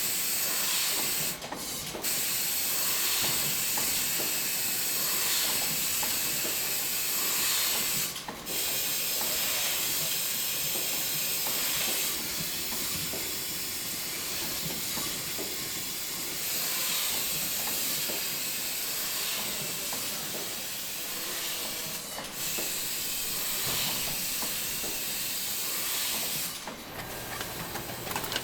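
Steady hiss from brewery machinery, interrupted by a few sudden short breaks.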